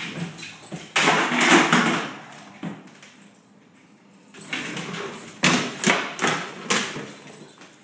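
A Weimaraner's claws scrabbling on a hardwood floor as it paws at and chases a toy ball, with the ball knocking and skittering across the boards. There is a long burst of scrabbling about a second in, and then a run of sharp knocks in the second half.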